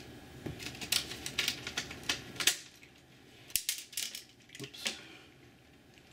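Clicks and light rattling of the Commodore 128's plastic case and metal shielding as hands work a ground strap loose and lift the top case away. A quick run of sharp clicks comes first, then a few scattered ones about three and a half to five seconds in.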